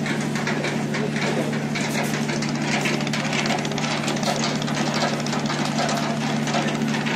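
A river passenger boat's engine running steadily, a constant low hum heard from on board, over an even rushing hiss.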